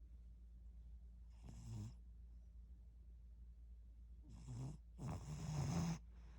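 Tabby cat snoring: one snore about a second and a half in, then a short one and a longer, louder one near the end.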